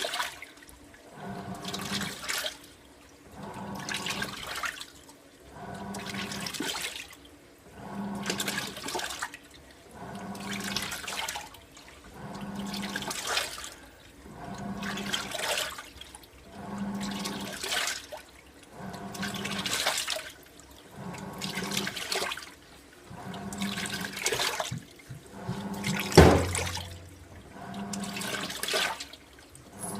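AQUA MCW-C50 coin-operated 5 kg top-loading washer in its fill rinse: the pulsator agitates a tub full of water, a swish about every two seconds, each stroke with a motor hum. A sharper knock about 26 seconds in.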